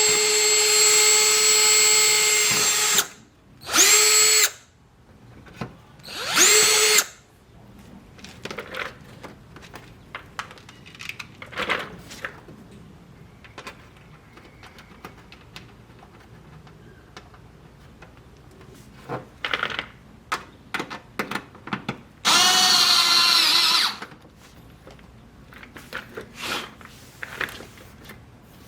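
Power drill running at speed for about three seconds, then two short bursts, while holes are drilled to mount a wide-body fender flare. Scattered clicks and knocks follow, then the drill runs again for about two seconds near the end, its pitch wavering under load.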